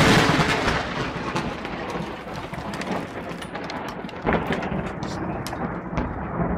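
Thunder from a close lightning strike rumbling and slowly fading over steady heavy rain, with a few sharp clicks.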